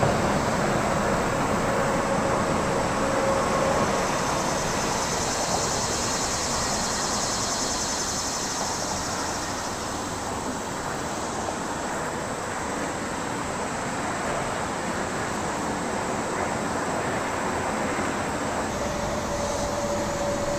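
Steady, continuous traffic noise from a nearby highway, with a few faint steady tones and a high hiss that swells briefly in the middle.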